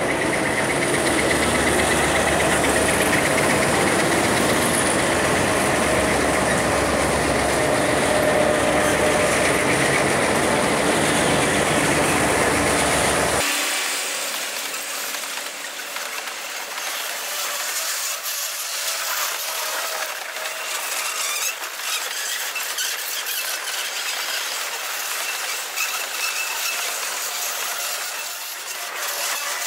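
GM G22UB diesel locomotives passing close by, engines running loud and steady. About halfway through it cuts suddenly to the fast-forwarded sound of loaded grain hopper cars rolling past, thin and without low end, with rapid wheel clicks and rattles.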